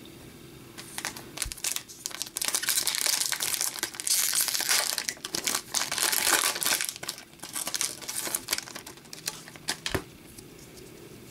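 Foil trading-card pack wrapper being torn open and crumpled by hand: several seconds of crackling, rustling foil, loudest in the middle. A single sharp click follows near the end.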